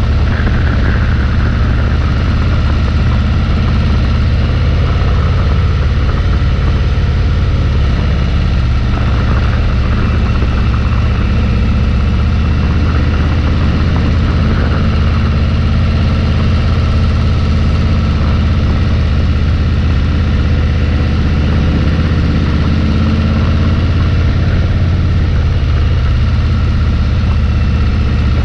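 Bagger motorcycle cruising at a steady speed: a steady low engine drone mixed with rushing wind and road noise.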